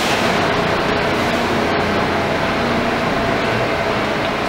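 R160 New York City subway train standing at the platform with its doors shut, its air-conditioning and onboard equipment running as a steady hiss with a faint steady tone.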